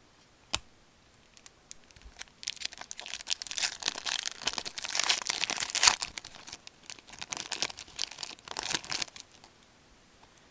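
A hockey card pack's foil wrapper being torn open and crinkled, a dense crackling that runs from about two and a half seconds in to about nine seconds, after a single sharp click near the start.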